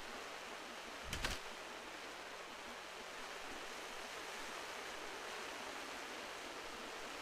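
Steady seaside ambience: an even wash of surf noise, with a brief thump about a second in.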